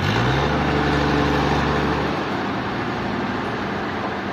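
An engine revs up quickly, holds its pitch for about two seconds, then drops back to a steady run.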